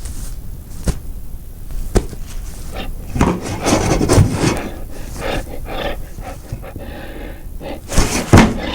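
Foley effects for on-screen slapstick: scuffing, rubbing and scraping, with sharp knocks about one and two seconds in, and two loud thumps near the end.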